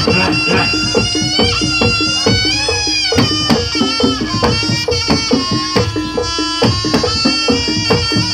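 Live Javanese jaranan music: a shrill reed-wind melody that bends and slides in pitch, played over a steady beat of hand drums and gamelan.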